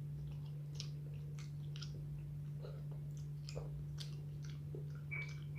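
A person chewing food close to the microphone, with scattered wet mouth clicks and smacks, over a steady low hum.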